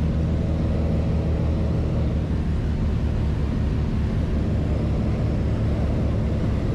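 Small twin-engine propeller plane's engines and propellers droning steadily, heard from inside the passenger cabin.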